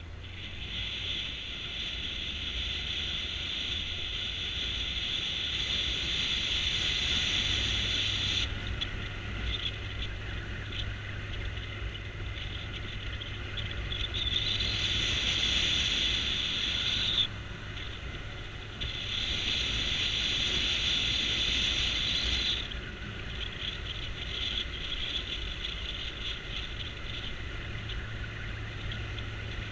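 Motorcycle riding down a mountain road, heard from on the bike: a low steady engine tone under wind noise, with a louder hiss that comes and goes in spells of a few seconds.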